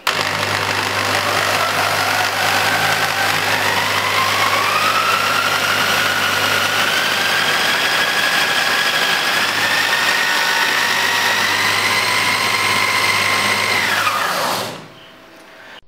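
Electric drill spinning a gear train that turns a brushless motor used as a generator to light halogen bulbs: a steady mechanical whine that rises in pitch over about ten seconds as the drill speeds up, then falls away as the drill stops near the end.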